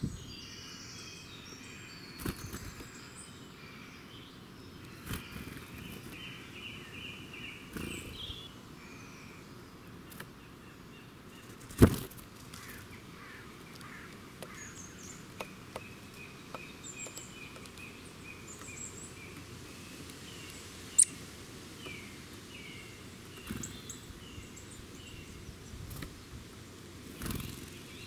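Small wild birds singing and calling, with runs of short repeated high notes, over a steady outdoor background. Several sharp knocks break in, the loudest about twelve seconds in.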